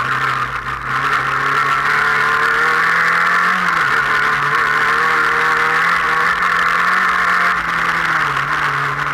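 Race car engine at speed, heard from inside the cockpit, its revs rising and falling with a sharp drop about four seconds in, over a constant roar of road and wind noise.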